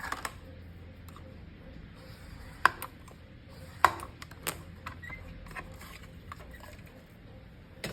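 Paper and craft tools handled on a work surface while cardstock is scored: two sharp clicks, about two and a half and four seconds in, and a few softer taps over a low steady hum.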